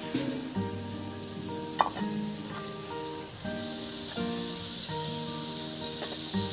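Mustard-paste masala with chopped tomato sizzling and bubbling in a metal kadai as a flat spatula stirs it, with one sharp knock of the spatula about two seconds in. Soft background music with held notes plays underneath.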